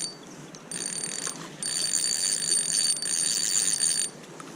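Fishing reel being cranked in spurts while a hooked smallmouth bass is fought in: a high, steady gear whir that stops and starts, with a longer run of reeling through most of the second half.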